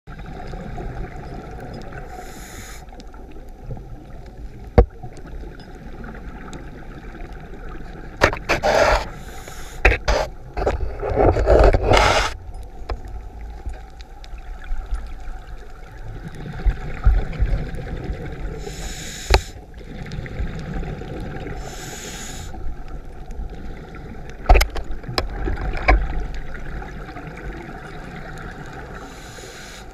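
Underwater sound through a GoPro's waterproof housing: a steady muffled rush of water, broken now and then by bursts of a scuba diver's exhaled bubbles, the longest and loudest a bit over a third of the way in. A few sharp knocks on the housing come through as well.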